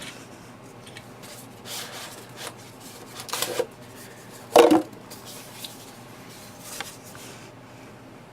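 Packaging being handled during a phone unboxing: a few short rustles and scrapes of cardboard and plastic, the loudest a brief scrape about halfway through.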